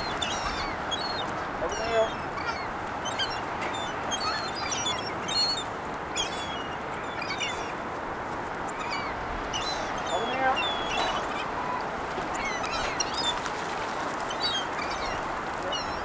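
A flock of gulls calling, many short high squealing calls overlapping and scattered throughout, over a steady background noise.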